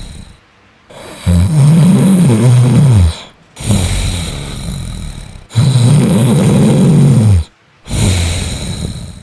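A person snoring loudly: two long, rattling snores whose pitch wavers up and down, each followed by a long, hissing breath.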